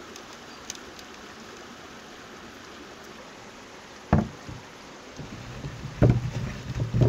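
Whole peeled potatoes tossed and rubbed by hand in a wooden bowl to coat them in spice, giving irregular low knocks and rubbing thuds from about five seconds in. Before that a faint steady hiss, broken once about four seconds in by a single sharp knock.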